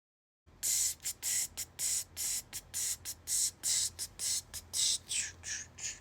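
Trigger spray bottle being pumped rapidly, giving a run of about twenty short hissing sprays, roughly four a second, starting about half a second in.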